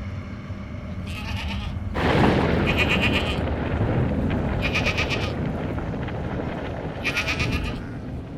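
Livestock bleating: four short, wavering calls about two seconds apart, over a steady noise that comes up about two seconds in.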